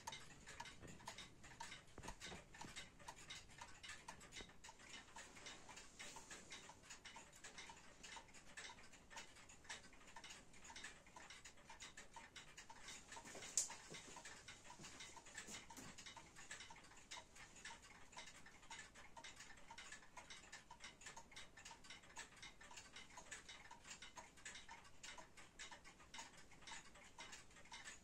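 Warmink Wuba Dutch wall clock ticking quietly and evenly, its pendulum escapement beating at a steady pace. A single sharp click about halfway through.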